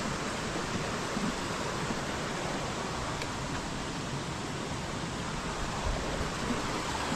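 Rushing stream water: a steady, even rush.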